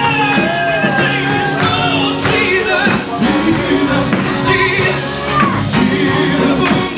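Live gospel band playing with a lead singer, sung melody over guitar and a steady drum beat.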